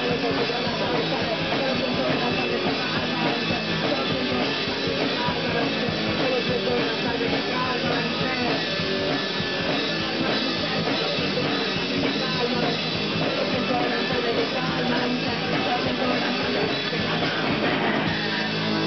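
Punk rock band playing live: fast drum kit and distorted electric guitar, loud and dense. Just before the end the drumming stops and a chord is left ringing.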